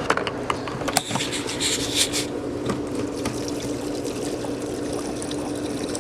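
Gasoline poured from a gas can into a lawnmower's fuel tank, a steady trickling fill. A few sharp clicks come in the first second.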